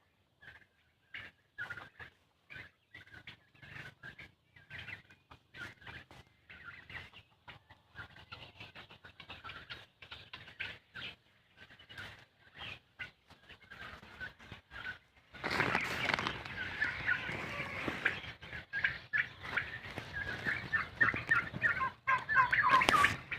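A flock of poultry calling, with many short overlapping calls. About two-thirds of the way through, the calling suddenly becomes much louder and denser, as if the whole flock starts up at once.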